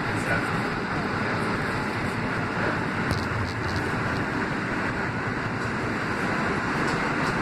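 NYC Subway R160 train running through a tunnel, heard from inside the front car: a steady rumble and rush of wheels on rail and air in the tunnel, with a few faint clicks about three seconds in.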